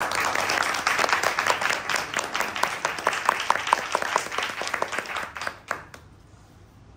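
Audience applauding, the clapping thinning to a few scattered claps and dying out about six seconds in.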